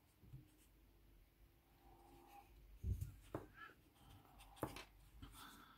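Near silence, with a few faint clicks and scrapes of a fine steel crochet hook working cotton thread, about three seconds in and again later on.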